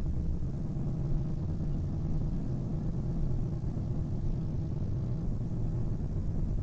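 Steady low rumbling drone, a synthetic 'space sound' standing for one of the Haumea family's trans-Neptunian objects, with a faint hum running through the rumble.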